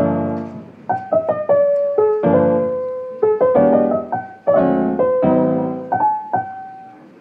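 Background piano music: notes and chords struck one after another, each fading out.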